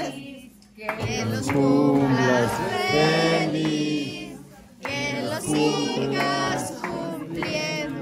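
A group of men and women singing a birthday song together in unison, with long held notes. The singing drops away briefly twice: about half a second in and again about four and a half seconds in.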